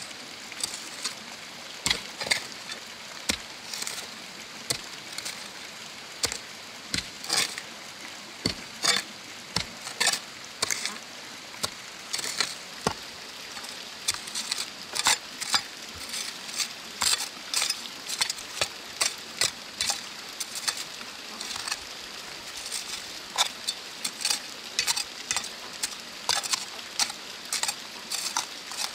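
Metal hoe chopping into stony soil again and again, roughly one stroke a second, each a sharp strike followed by gritty scraping of dirt and small stones.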